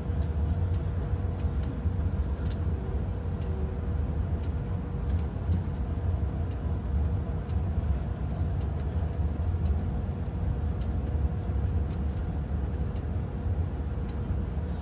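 Home furnace running with a fresh filter in, a steady low rumble with a constant hum over it. A few faint clicks sound over the rumble.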